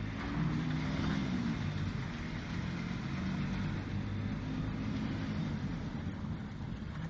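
Car engine running with road noise, heard from inside the car's cabin as it drives, the engine note rising and falling a little.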